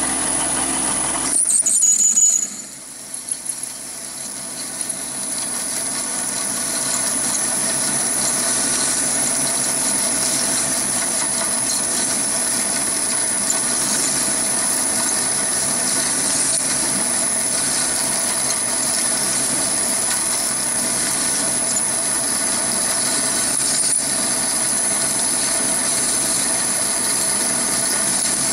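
Chinese mini lathe running under load while a large Drillpro HSS twist drill cuts into a spinning workpiece: a steady motor hum with a constant high whine. About one and a half seconds in, a brief louder squeal with falling pitch comes from the cut, then the drilling settles into a steady sound.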